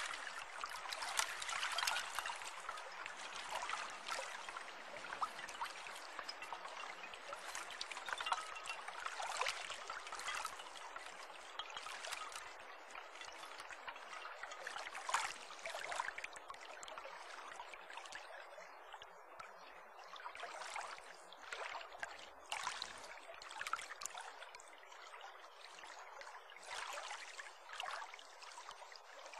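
Running water of a stream: a steady babbling rush with many small irregular splashes, a little quieter in the second half.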